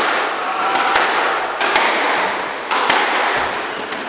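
Squash ball struck by rackets and smacking off the court walls during a rally: sharp cracks, about four in three seconds, each ringing on in the hard-walled court.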